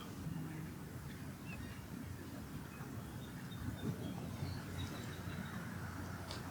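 Faint, thin high bird chirps, a short run of them in the middle, over a steady low background rumble.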